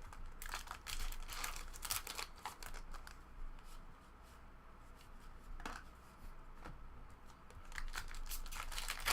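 Trading card pack wrappers being torn open and crinkled, with the cards handled, in irregular short rustles. The rustling is busiest at first, thins out in the middle and picks up again near the end.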